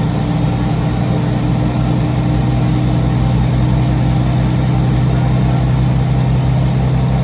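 Mercedes-Benz O530G Citaro G articulated bus engine running steadily under way, heard from inside the bus, with a rapid low pulsing from a blown exhaust.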